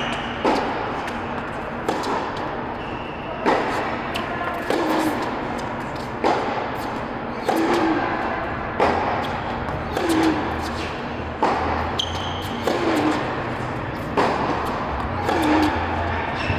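Tennis balls struck by rackets and bouncing on a hard court during a baseline rally: a sharp pop about every second, each ringing briefly in the large indoor hall.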